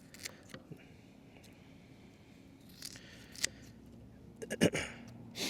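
Scattered sharp clicks and short snipping sounds, a few seconds apart, with a quick cluster of louder clicks about four and a half seconds in.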